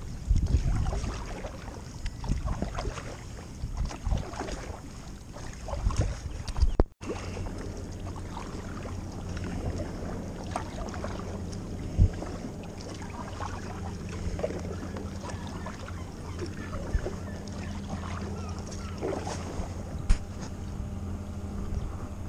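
Kayak paddle strokes splashing and dripping as the kayak moves over calm water, with wind rumbling on the microphone for the first several seconds. After a sudden break about seven seconds in, a steady low hum runs under the occasional paddle splash.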